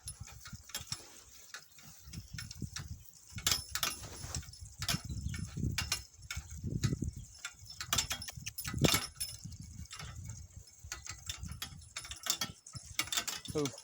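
Donkey-drawn cart on the move: irregular metallic clinks and knocks from the harness and cart, over a low rumble that swells in the middle.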